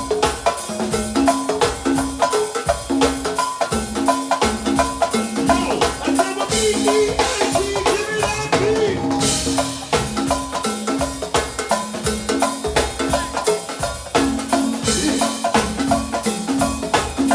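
Live instrumental music: a drum kit playing a steady groove, with dense hits under a repeating bass line and keyboard notes.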